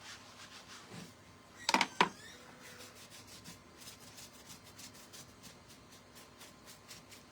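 Sandpaper rubbed over wood in short repeated strokes, distressing the wood surface of a tobacco basket. Two sharp knocks about two seconds in.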